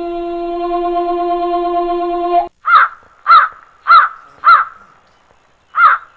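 A long held musical note cuts off about two and a half seconds in. It is followed by loud, harsh caws: four in quick succession, then one more near the end.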